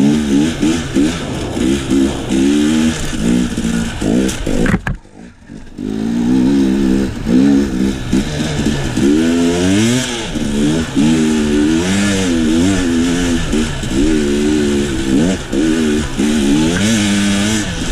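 KTM enduro dirt bike engine running under way, its pitch rising and falling with the throttle. The sound drops almost to nothing for under a second about five seconds in, then picks up again.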